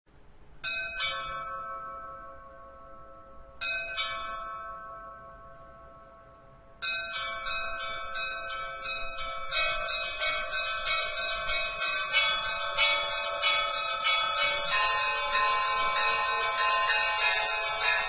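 Church bells ringing. There are two strokes, then two more about three seconds later, each left to ring out and fade. From about seven seconds in, several bells are struck together in a fast, continuous peal that grows denser.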